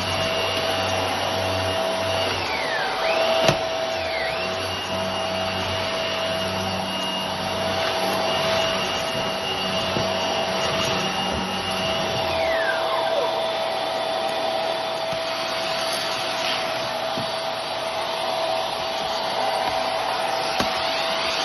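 Hart upright vacuum cleaner running on a hardwood floor with a steady motor whine. The pitch dips briefly about three seconds in and again about halfway through, when a low hum underneath drops away. There is one sharp click about three and a half seconds in.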